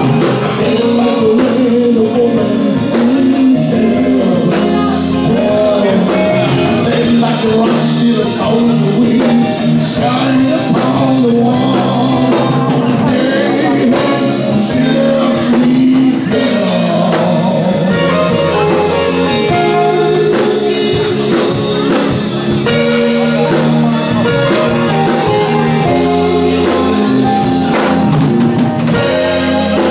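Man singing into a handheld microphone, amplified over a band accompaniment of drum kit and guitar.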